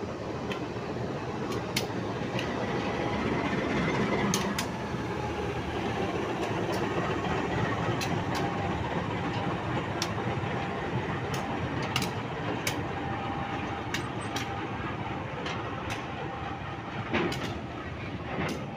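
CC204 diesel-electric locomotive rolling slowly past at close range while shunting, its diesel engine running with a steady rumble that swells a few seconds in. Sharp clicks, often in pairs, come every second or two as the wheels cross rail joints.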